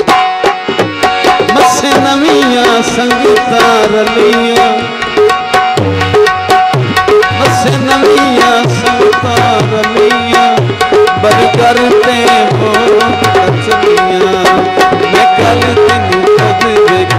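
Instrumental passage of live Punjabi folk music: a fast hand-drum rhythm on a dholak under a harmonium holding and playing the melody.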